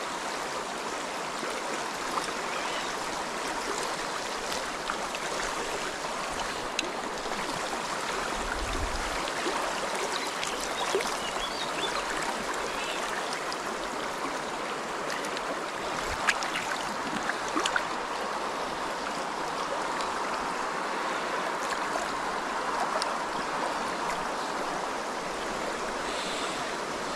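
Shallow river running steadily over a stony bed, with a few faint knocks about two-thirds of the way through.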